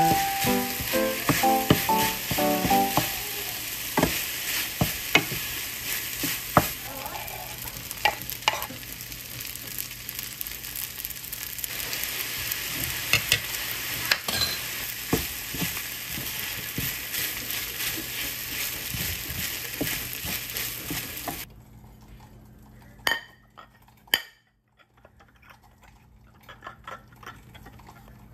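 Pork and rice sizzling in a frying pan as a wooden spatula stirs and scrapes them, with scattered taps of the spatula against the pan. The sizzling stops abruptly about three-quarters of the way through, and two sharp knocks follow.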